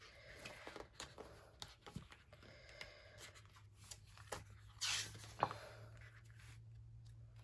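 Pages of a sticker book being turned by hand: soft paper rustles and light taps, with one louder swish of a page about five seconds in and a sharp tap just after.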